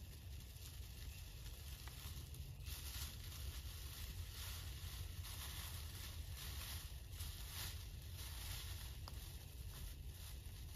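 Foil emergency blanket crinkling and crackling as it is shaken out and spread by hand, in irregular uneven rustles over a steady low rumble.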